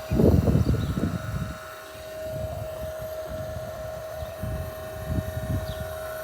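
Smoke-test machine's air pump running with a steady hum while it pushes smoke into the intake to find a vacuum leak. Rough low rumbling on the microphone in the first second and a half.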